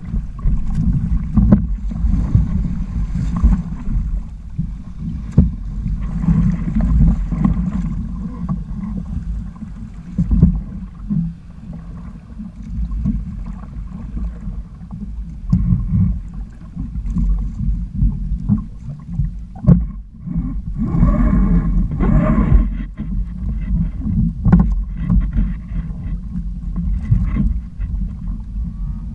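Wind buffeting the microphone over water splashing and rushing along the hulls of a Hobie sailing kayak trimaran under sail in choppy sea.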